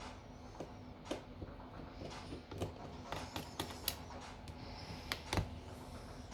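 Scattered light clicks and taps of small repair tools and parts being handled during smartphone disassembly. There are a cluster of clicks in the middle and two sharper ones about five seconds in.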